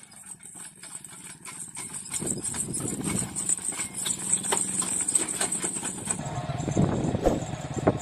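Bullock cart passing close: the bulls' hooves clopping on the asphalt road and the rubber-tyred cart rolling and rattling behind them, growing louder from about two seconds in as it draws near.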